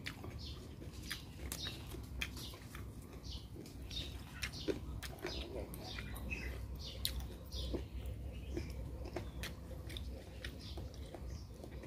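Close-up chewing and lip-smacking of someone eating bamboo-shoot salad and fresh leaves by hand, with many short wet clicks and smacks.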